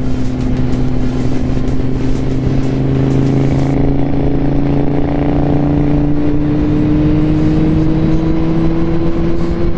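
Kawasaki Z750 motorcycle's inline-four engine running under way, its pitch rising slowly and evenly as it pulls in one gear, over wind noise.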